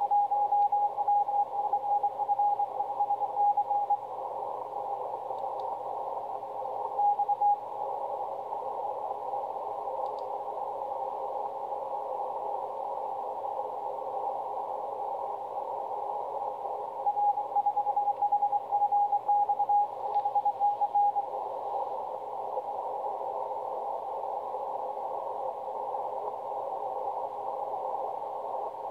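Morse code (CW) received on the 20 m band through a Yaesu FT-1000MP Mark-V HF transceiver. A keyed beat tone sends in spells: at the start, briefly about seven seconds in, and again from about 17 to 21 seconds. Between the spells there is steady band hiss, narrowed by the receiver's CW filter.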